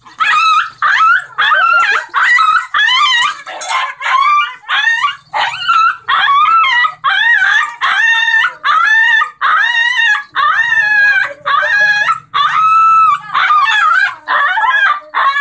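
Small dog barking and yelping frantically at an attacking rooster: rapid high-pitched yaps about two a second without a break, with one longer drawn-out yelp near the end.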